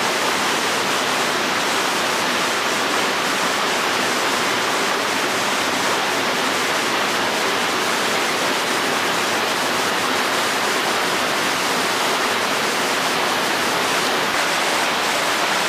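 Steady, even rush of running water that never changes in level.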